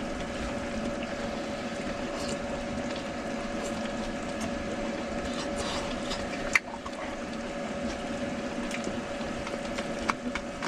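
A steady low hum with an even hiss underneath, with a few light clinks of chopsticks against metal bowls during eating, the sharpest just past the middle.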